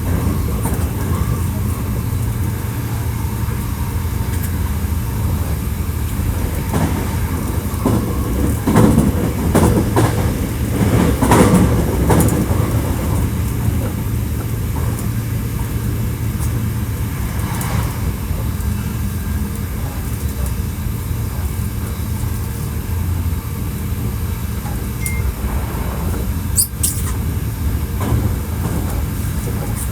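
Running sound of a Hankyu 1300 series electric train (Toyo IGBT-VVVF drive), heard from inside the car while under way: a steady low rumble of wheels and running gear. A louder rattling stretch comes about a third of the way in, and there is a brief high squeak near the end.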